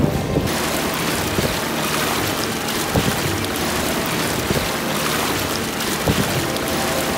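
Suzumar inflatable dinghy running fast through the water: a steady rush of water and spray along its tube over the low, steady hum of its motor. The rush comes up about half a second in, with wind on the microphone.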